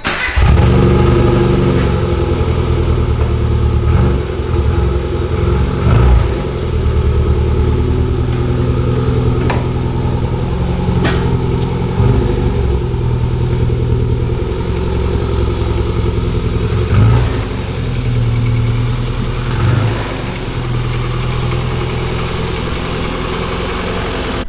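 Rover Mini's four-cylinder A-series engine idling, with the revs rising briefly several times. It is running on fresh oil and a new oil filter.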